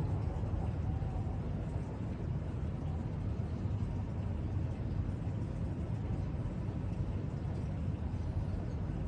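Steady low background rumble with no distinct events, like room or distant traffic noise.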